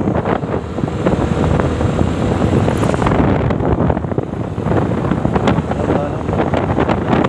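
Wind rushing and buffeting the microphone of a moving two-wheeler, over the steady noise of its engine and tyres on the road.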